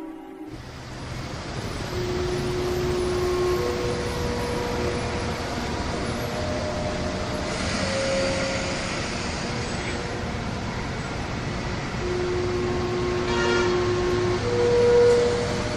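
A loud, steady rushing rumble that starts suddenly about half a second in, with a slow melody of long held notes sounding over it.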